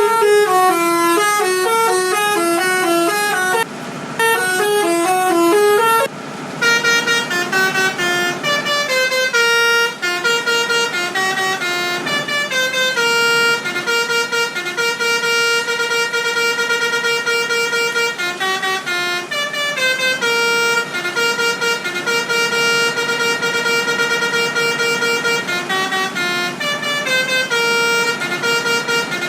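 Telolet bus horn, the Indonesian multi-tone musical horn, playing a tune of short stepped notes. There are brief breaks about four and six seconds in, and after them it carries on with longer held notes.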